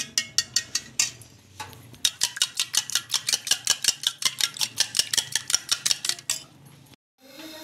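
A raw egg being beaten with a metal spoon in a small stainless steel bowl: quick, even clinking of spoon on steel, about six strokes a second, lighter in the first two seconds. The clinking stops about six seconds in.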